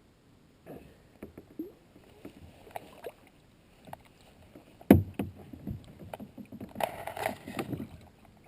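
Knocking and handling noises on a kayak: irregular light knocks, one loud thump about five seconds in, then a busier cluster of knocks and rustling near the end.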